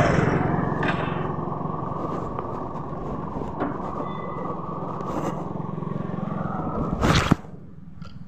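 Engine and road noise of a vehicle driving along a road, heard from on board; it eases off a little over the first few seconds. About seven seconds in there is a short loud noise, and after it the running noise is quieter.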